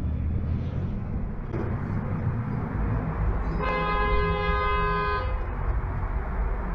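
Another car's horn sounding once, a single steady blast of under two seconds about halfway through, over the low rumble of the dashcam car's engine and road noise.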